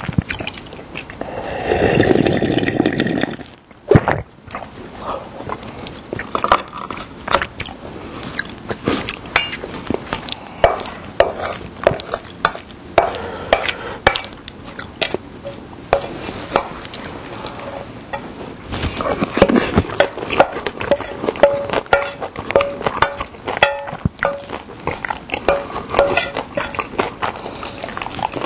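Close-miked eating: a long slurp of soup from a stone pot near the start, then chewing and many small clicks of a spoon on a stainless steel bowl, with a brief ringing scrape of metal later on.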